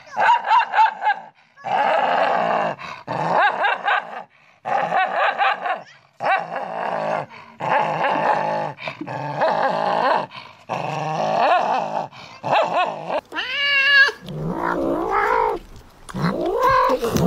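A small dog snarling and growling at its own reflection, a string of bared-teeth growls about a second each with short breaks between. Near the end a cat gives drawn-out growling yowls that rise and fall in pitch.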